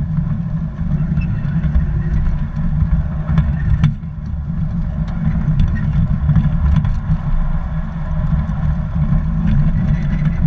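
Garden-railroad model train rolling along its track, picked up by a camera riding on the gondola car behind the locomotive: a steady low rumble of wheels and car vibration, with a few sharp clicks.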